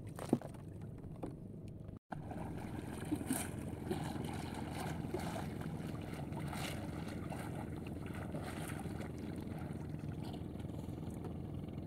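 Faint splashing of a person swimming beside a small wooden outrigger boat, over steady low background noise from the water. The sound drops out briefly about two seconds in.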